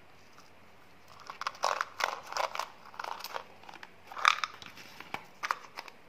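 Hands handling a small plastic candy bottle: a run of irregular plastic clicks, snaps and crinkles starting about a second in, the loudest snap a little past the middle.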